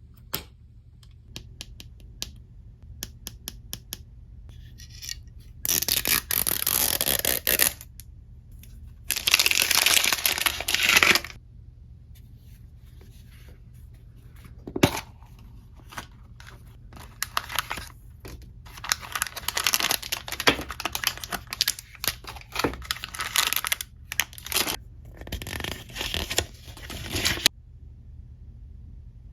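Packaging being torn open: two long ripping tears, then a stretch of crinkling and small clicks as the wrapping is pulled apart and handled.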